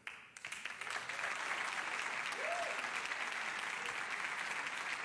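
Studio audience applauding, swelling over the first second and then steady.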